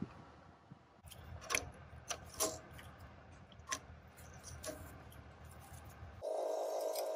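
Small metal clicks and clinks from a wrench and a brass compression fitting as the copper oil line is tightened onto an oil pressure gauge, about half a dozen scattered taps. Near the end a steady droning noise starts abruptly.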